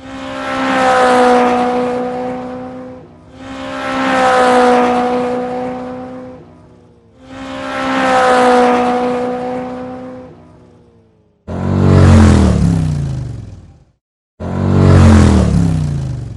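Sound effects of a motor vehicle's engine passing by, five times. The first three swell up and fade away at a fairly steady pitch. The last two start suddenly and drop in pitch as they go by.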